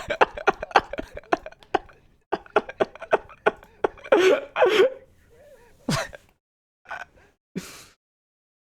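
A man's non-speech vocal noises close on the microphone: a fast run of short breathy puffs, then gasps and a few sharp cough-like bursts.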